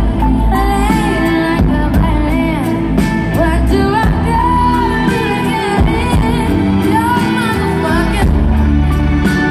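A female lead vocalist singing live with a band, the amplified music loud and continuous through an arena's sound system.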